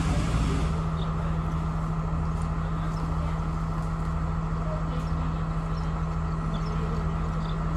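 Steady hum and low rumble of a train's engine running while the train stands still, heard from inside the passenger carriage, with a constant low drone.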